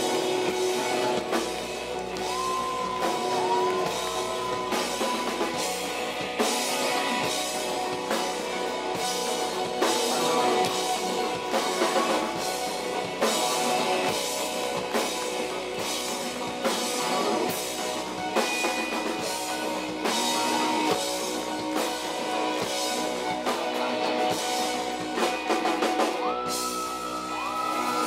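Rock music with a steady drum-kit beat and guitar.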